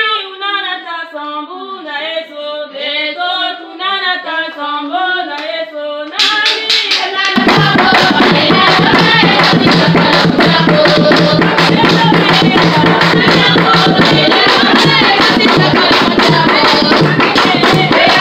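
Congregation singing a hymn: voices alone at first, then about six seconds in sharp percussion strokes join and a low drum comes in a second later, keeping a steady beat under the singing.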